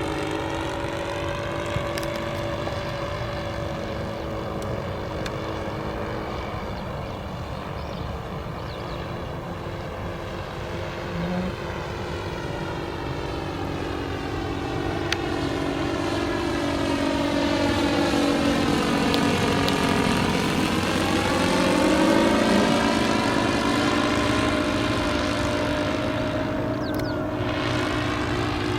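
Model Cessna 337 Skymaster's propellers and engines droning steadily in slow flight. The sound grows louder and its pitch bends as the plane passes close by about two-thirds of the way in.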